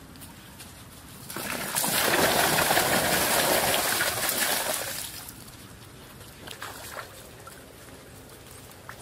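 Water poured from a pot splashing into a muddy pool of water: a steady splashing rush starting about a second in and dying away about halfway through.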